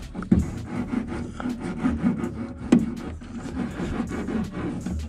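Small hand roller pressed hard and rolled back and forth over Kilmat foil-backed butyl sound-deadening mat, an irregular scraping rub of many short strokes. Two sharper knocks stand out, about a third of a second in and near the middle.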